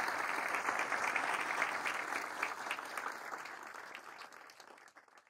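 Audience applauding, a dense patter of many hands clapping that dies away over the last two seconds or so.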